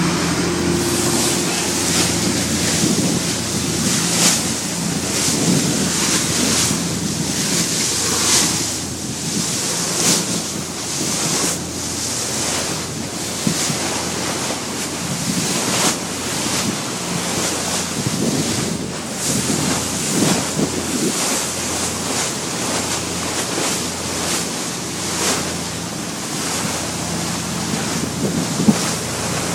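Wind buffeting the microphone and sea water rushing and splashing against a fishing boat's hull, surging every second or two over a faint steady low hum.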